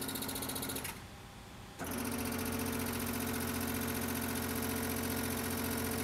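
Weinig Unimat Star 1000 moulder's powered beam adjustment running steadily as the beam is lowered. It stops a little under a second in, then starts again about two seconds in as the beam is raised.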